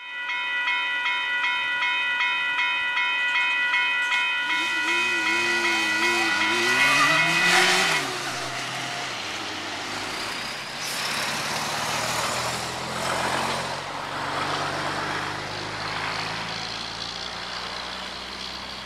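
Level crossing warning bell ringing rapidly for about eight seconds, with a lower note rising and falling in pitch beneath it near the end. The bell cuts off suddenly, and steady road traffic follows, with vehicles passing.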